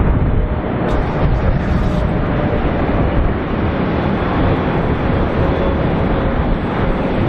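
Boeing 777 freighter landing, its twin jet engines making a loud, steady rushing noise with a deep rumble underneath.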